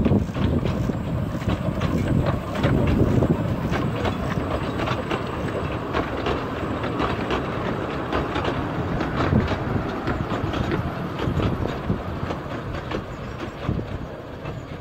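Two-foot-gauge steam train hauled by the Bagnall-built locomotive Isabel, running along the line with its wheels clicking over the rail joints in a continuous rattle, loudest around the start and again about three seconds in.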